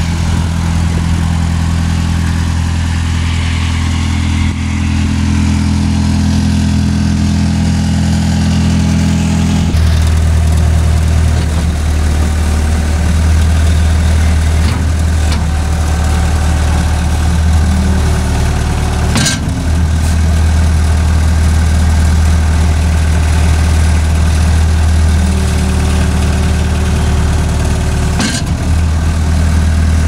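Cat 277B skid steer's four-cylinder diesel engine running steadily; its note changes about ten seconds in. Two brief sharp knocks come in the second half.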